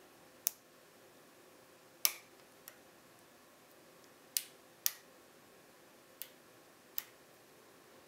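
Sharp, irregular metallic clicks, about seven of them, from a pick and tension wrench working the pins inside a BKS PZ 88 pin-tumbler euro cylinder; the loudest, about two seconds in, rings briefly.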